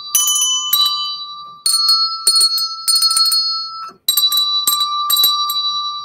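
Three small handbells rung in turn, each strike a bright ding with a long ringing tail, about one strike every half second. The notes switch between a few different pitches as different bells sound.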